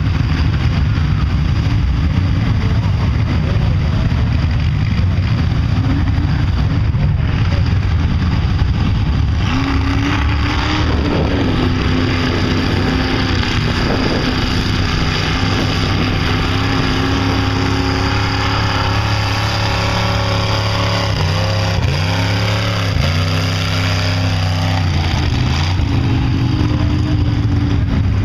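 Off-road trucks' engines revving hard while bogging through a mud pit: a steady low drone, then from about ten seconds in a high, held engine note that drops and climbs again a few times near the end.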